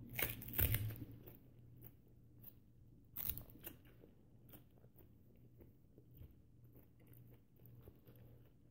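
A person biting into and chewing a whole banana with its peel on: loud bites in the first second and again about three seconds in, then steady chewing.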